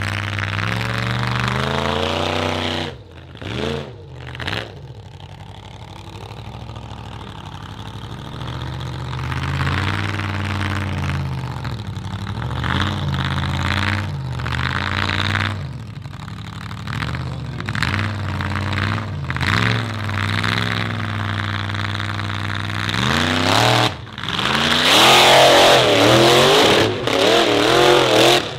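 Formula offroad buggy engine revving hard again and again, its pitch climbing and falling with the throttle. It drops off briefly about three seconds in, and the loudest, highest revving comes near the end.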